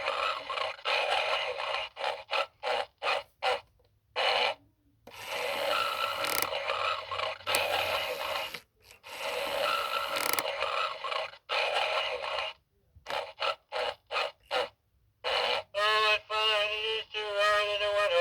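Gemmy animated Homer Simpson figure playing recorded snoring through its small speaker: three long snores of about four seconds each, thin with no bass, then shorter choppy ones. Near the end a pitched, wavering voice sound starts.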